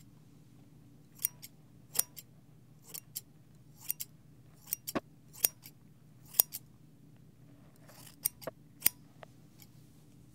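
Barber's hair-cutting scissors snipping close to a binaural microphone during a haircut: sharp, irregular snips, several in quick pairs, starting about a second in.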